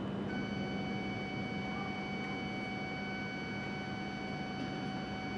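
A steady high-pitched tone with several overtones comes in just after the start, holds one pitch for about five and a half seconds and then stops, over a low steady hum and background noise at a Shinkansen platform.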